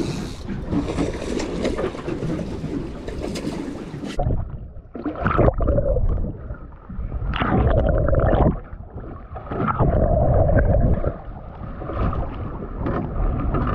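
Wind and water hiss over the open deck, then about four seconds in the sound turns dull and muffled as the microphone goes underwater. There are three or four bursts of rushing, gurgling water before it surfaces.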